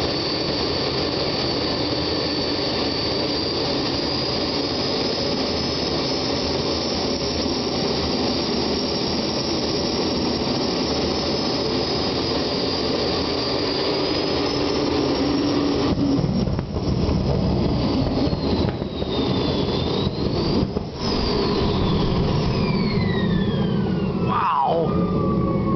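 Homemade gas-turbine jet engine with a tailpipe running with a steady loud roar and a high turbine whine. In the last third the sound turns ragged, with brief dips, and the whine falls steadily in pitch as the turbine spools down.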